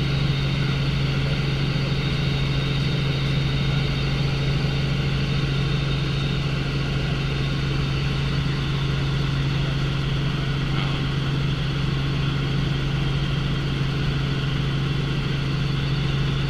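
Tour helicopter running: a steady, unchanging drone with a strong low hum under a wide rushing noise.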